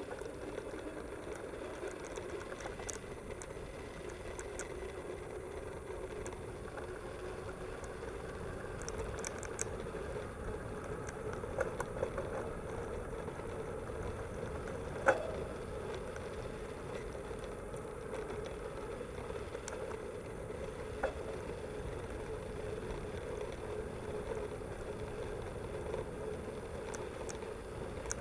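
Mountain bike rolling along a brick-paved path: a steady rumble from the tyres on the pavers with small rattles from the bike, and a sharp knock about halfway through.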